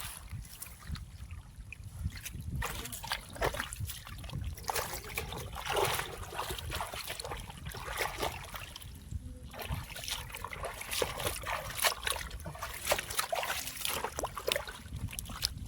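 Shallow muddy water in a flooded rice field splashing and sloshing in many irregular small splashes as fish are grabbed by hand, over a steady low rumble.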